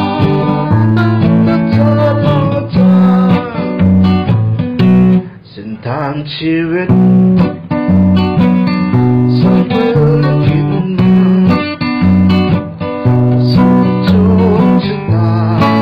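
Background music led by guitar, plucked and strummed notes over a steady, rhythmic bass line, briefly thinning out about six seconds in.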